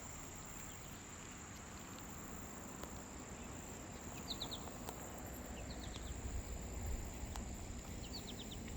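Steady high-pitched drone of summer insects, crickets or katydids, with a bird chirping a quick run of three or four notes three times.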